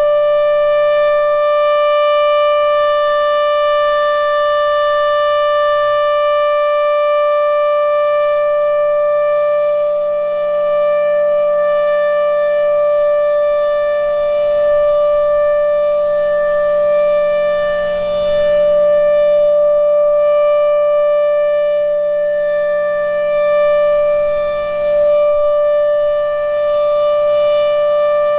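Federal Signal Thunderbolt 1000 outdoor warning siren with an A1 head, sounding a steady alert. It holds one loud, high tone at constant pitch, and the level dips and swells slightly now and then.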